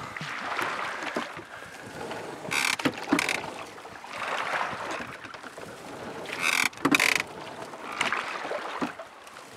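Ocean rowing boat being rowed: two short clatters of the oars and rowing gear working at the catch, about four seconds apart, one per stroke, with a swishing wash of water between them.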